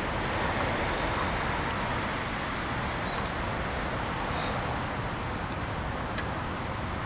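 Steady background noise of distant road traffic, with a few faint, short high peeps.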